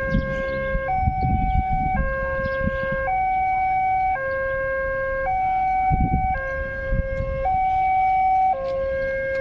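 Railway level crossing's electronic warning siren sounding a two-tone hi-lo signal, alternating between a lower and a higher pitch about once a second, over irregular bursts of low rumble.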